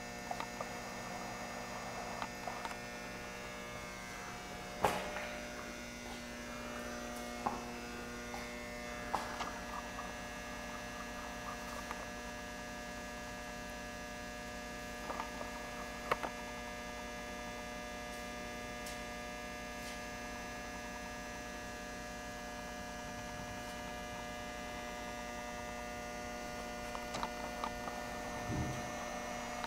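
Steady electrical hum made of several held tones at fixed pitches, with a few scattered light clicks and taps.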